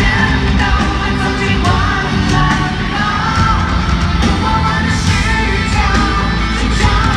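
Loud live pop-rock concert music: a full band with drums playing and a voice singing over it, with yells mixed in, carrying the echo of a large stadium.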